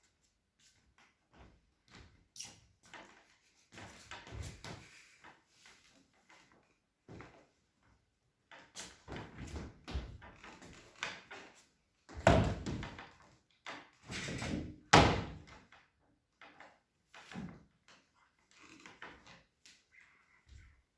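Irregular knocks and thumps, scattered throughout, with two loud ones about twelve and fifteen seconds in.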